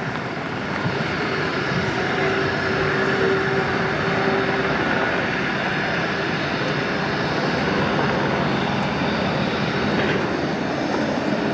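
Airbus A350-900's Rolls-Royce Trent XWB turbofan engines running at taxi power: a steady jet noise with a held whine, growing a little louder about a second in.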